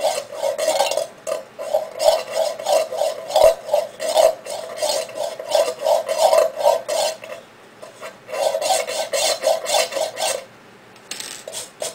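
A sharp broken-off nail point scratching the tinplate end of a tin can in quick repeated strokes, about two to three a second, each stroke making the can end ring. The strokes score arcs in from the rim to find the end's exact center. They pause briefly past the middle and stop near the end.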